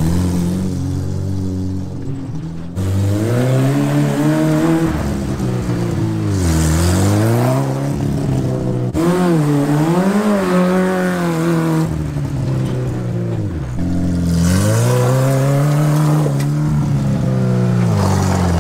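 Suzuki Samurai's four-cylinder engine revving up and easing off over and over, its pitch rising and falling several times as the little 4x4 is driven around on dirt.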